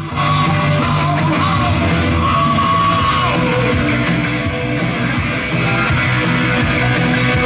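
Rock song with a yelling, shouted vocal playing from an FM station through a Pioneer SX-939 stereo receiver and its loudspeakers. It cuts in suddenly at the start after a brief quiet gap while tuning, then plays at a steady, loud level.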